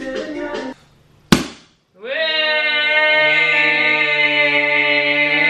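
A sparkling-wine cork pops out of its bottle with one sharp pop about a second in, after a moment of music. From about two seconds a long sung note is held steadily to the end.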